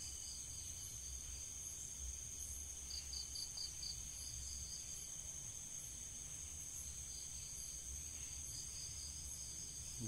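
Crickets chirping: a steady high trill, with a short run of quick chirps about three seconds in, over a low rumble.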